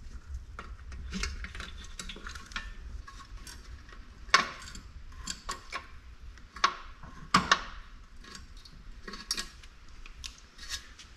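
Scattered light metallic clicks and clanks as hands and a hand tool work the steel frame of a stock Jeep TJ seat base, stripping off its release cables and fittings. There are sharper knocks about four and a half and seven and a half seconds in.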